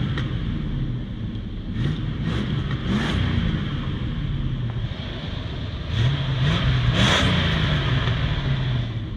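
Chevrolet pickup's engine revving up twice and dropping back to a steady run between.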